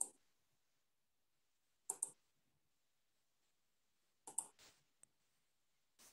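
Near silence broken by a handful of short, sharp computer mouse clicks: one at the start, one about two seconds in, and two or three close together between four and five seconds in.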